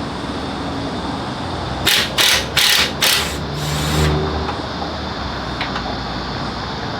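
Snap-on 3/8-inch 18-volt cordless impact wrench hammering in four short bursts about two seconds in, undoing a bolt, followed by a brief steady motor hum.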